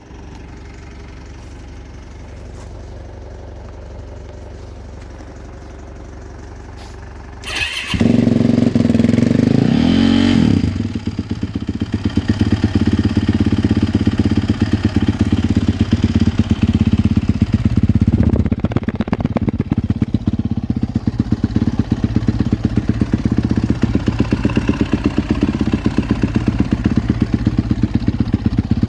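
2018 Yamaha YZ450F's single-cylinder four-stroke engine, stock exhaust, cold-started: after a low background hum it fires about eight seconds in, runs high for a moment and drops back, then idles with an even pulse. A brief blip of the throttle comes about eighteen seconds in.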